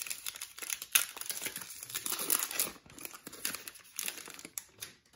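Foil wrapper of a 2022-23 Optic basketball trading card pack being torn open and crinkled by hand: irregular crackling with a sharp crack about a second in, dying away near the end.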